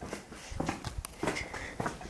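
Footsteps: a handful of uneven steps, with knocks and scuffs on a hard floor.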